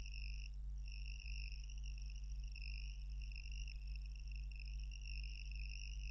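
Faint background: a steady low hum with a continuous high-pitched trill over it, which breaks off briefly about half a second in.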